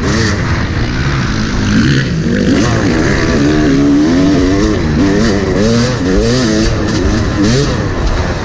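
Yamaha YZ motocross bike's engine revving hard while it is ridden on a dirt track, its pitch rising and falling over and over with throttle and gear changes.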